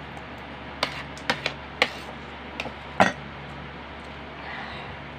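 Eating utensils clinking against a plate: about six short, sharp clinks between one and three seconds in, the loudest about three seconds in.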